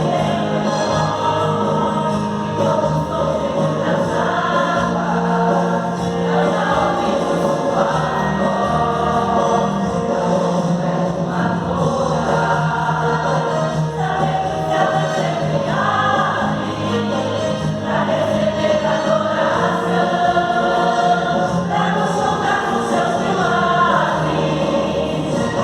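Church choir singing a gospel worship song together, voices carrying the melody over steady low accompaniment.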